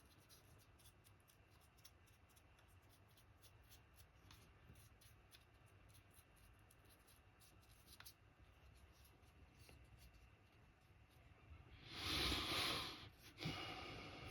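Paintbrush dabbing and dragging acrylic paint over a 3D-printed figure, faint, as a string of small scratchy ticks. Near the end comes a much louder rushing noise lasting about a second, followed by a shorter one.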